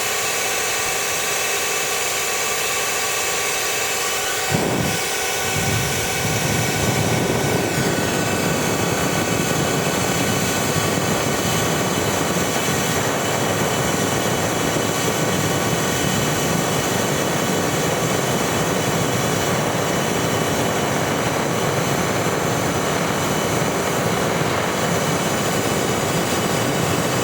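Steady roaring rush of air and fire as a clogged two-stroke aluminium silencer is burnt out, with air blown inside so the oil and carbon clogging it burn, and a whine of steady tones above the roar. A knock comes about four and a half seconds in, after which a deeper rumble fills in underneath.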